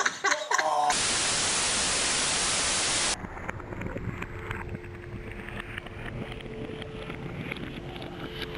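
A burst of flat static-like white noise, about two seconds long, that starts about a second in after a short bit of voice and cuts off abruptly. After it comes a quieter noisy background with faint steady tones and small clicks.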